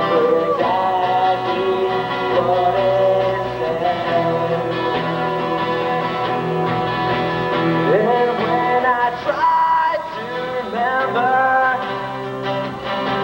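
Acoustic guitar played with a man singing over it, a song performed live.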